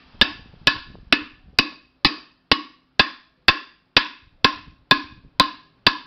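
Wooden block striking the bottom of an aluminium pressure cooker in a steady series of knocks, about two a second, each with a short metallic ring. The pot's warped bottom is being beaten flat so it stops rocking.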